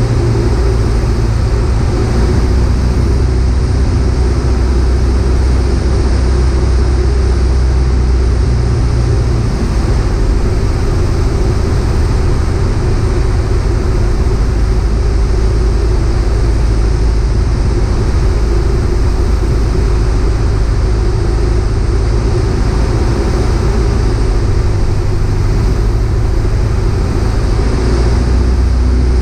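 Piper PA-38 Tomahawk's four-cylinder Lycoming O-235 engine and propeller droning steadily, heard inside the cabin on approach. The deep part of the drone eases about nine seconds in and grows again near the end.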